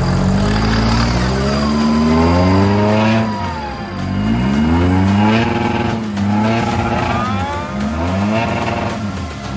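Off-road 4x4's engine revving hard, its pitch climbing and dropping again several times as the throttle is worked on and off.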